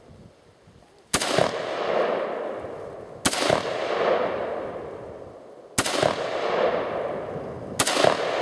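Radom Sport Beryl semi-automatic rifle firing four single shots about two seconds apart. Each shot is followed by a long, fading echo.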